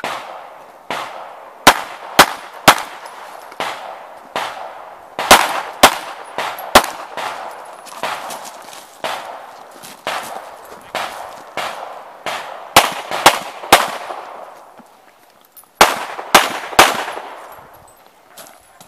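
Pistol shots from a handgun fired in a timed course of fire: four quick strings of three loud shots each, about half a second apart, with fainter shots between the strings.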